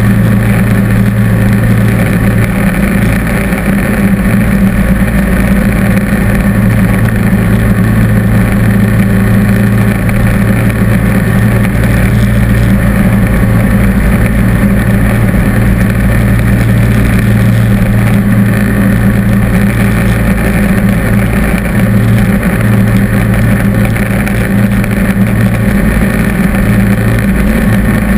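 John Deere D140 lawn tractor running steadily with its snowblower attachment throwing snow: a constant engine drone with a strong low hum and the rush of snow through the chute.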